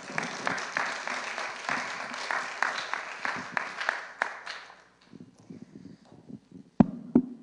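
Congregation applauding, the clapping dying away about four and a half seconds in. Near the end, two sharp thumps.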